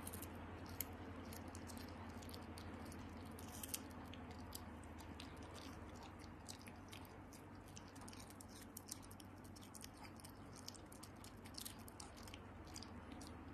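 A Pomeranian crunching and chewing a slice of raw cucumber: faint, irregular crisp clicks of biting, over a low steady hum.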